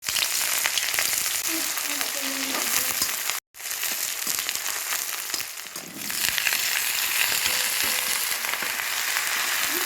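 Food sizzling and crackling as it fries in hot oil in a pan, with the sound cutting out briefly about three and a half seconds in.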